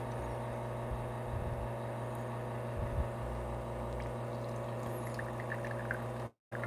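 Lelit espresso machine's pump running with a steady hum while an espresso shot is extracted, the pump restarted after a long pre-infusion soak. The sound cuts out briefly near the end.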